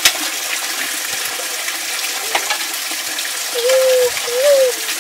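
Steady rush of water pouring from a bamboo pipe spout onto rocks and a wet stone floor. A sharp click comes just after the start, and two short pitched calls sound near the end.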